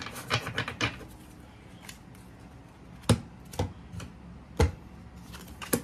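A deck of tarot cards being handled on a wooden tabletop: a few light card clicks in the first second, then four sharp taps spread over the last three seconds as the deck is cut and the piles are set down on the table.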